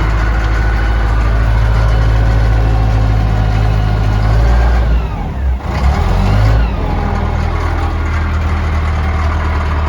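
An old diesel machine's engine running steadily under work; about five seconds in the engine note drops and then picks back up before settling again.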